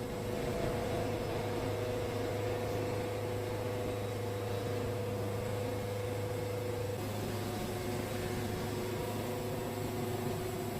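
Wood-Mizer band sawmill running a cut through a yellow pine log, a steady mechanical hum with a few steady tones; one of the tones drops out about seven seconds in.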